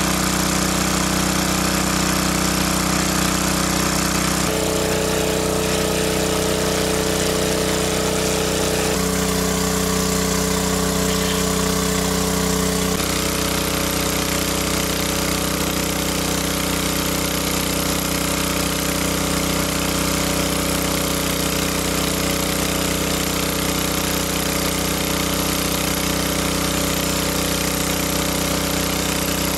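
Small engine-driven water pump running steadily, pumping water out of the pool through its hose; its hum shifts slightly in pitch a few times.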